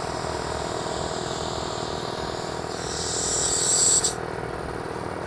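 Belt-driven petrol air compressor running steadily while warming up after a cold start. Around the middle a hiss of escaping air swells for about a second and a half, then cuts off suddenly.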